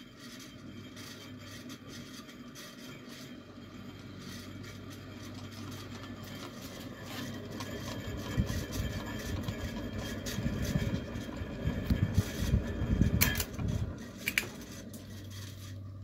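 Worn-out Alaska ceiling fan running, its motor giving a steady hum. In the second half it grows louder with uneven rumbling, and two sharp clicks come near the end.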